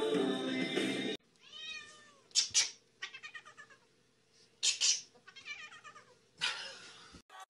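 A cat yowling and meowing over and over, in wavering drawn-out calls with a few loud harsh cries among them. Music plays for about the first second, then cuts off abruptly.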